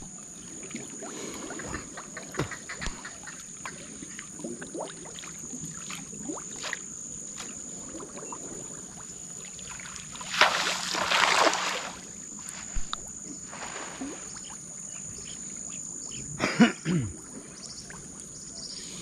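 Water splashing and sloshing in a river, with a louder rush of splashing lasting over a second about ten seconds in and a shorter burst near the end, over a steady thin high-pitched tone.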